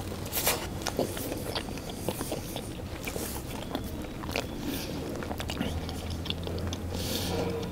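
A man biting into and chewing a batter-coated chicken lollipop, with close-up mouth sounds and a scatter of small clicks and snaps as he eats.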